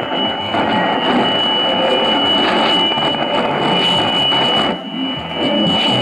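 Shortwave static from a Tecsun S-2000 receiver tuned to 4865 kHz: a weak tropical-band broadcast buried in hiss and crackle, with a steady high whistle. The whistle is the heterodyne beat against the neighbouring station on 4862 kHz, 3 kHz away. The noise dips briefly about five seconds in.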